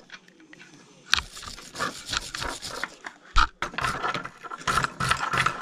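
Wire brush scrubbing the bearing seat of an aluminium RC-truck outer drive in short back-and-forth strokes, cleaning the surface where the wheel bearing fits, with one knock about halfway through.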